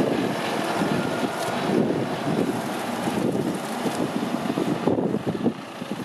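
John Deere 310SL backhoe loader's diesel engine running as the machine drives off, with wind buffeting the microphone. The sound drops somewhat near the end as the machine moves away.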